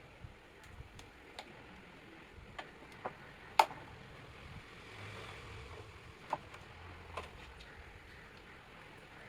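Scattered light clicks and knocks of a table fan's plastic motor housing being handled and wiped with a wet cloth, with one sharper knock about three and a half seconds in.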